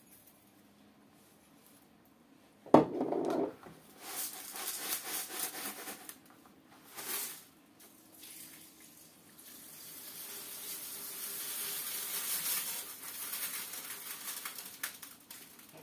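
Freshly washed aquarium gravel being scooped and poured from a plastic basin into an empty glass tank. There is a sharp knock about three seconds in and a few short spills, then a long steady rush of gravel sliding out of the tipped basin through most of the second half.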